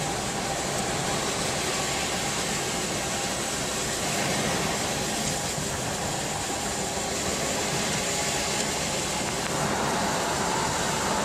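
Steady road noise heard inside a moving car's cabin, the tyres hissing on a wet road surface.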